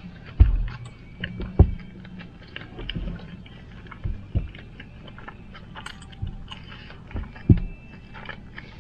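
Close-up eating sounds: chewing and wet mouth smacks on cheese-covered animal-style fries, with many small clicks and a few sharp low thumps. Near the end, fingers being licked.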